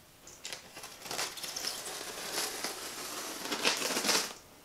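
Utility knife cutting and scraping through packing tape and plastic wrap on a cardboard box: a run of crinkling, scraping strokes that stops a little before the end.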